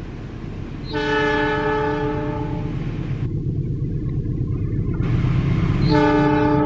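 Diesel locomotive sounding its horn in two steady chord-like blasts, each about one and a half seconds long: the second comes about five seconds after the first. Under them is the low rumble of the approaching train, growing louder.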